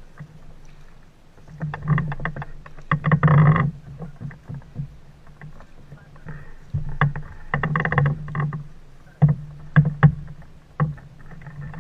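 A boat's engine running with a steady low drone. Loud irregular surges and sharp knocks come over it several times.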